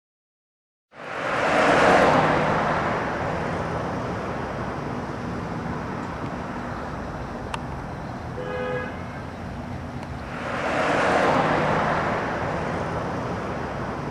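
Club crowd cheering and applauding, swelling twice, with a short shout or whistle from the audience midway. The sound cuts in abruptly about a second in, after dead silence.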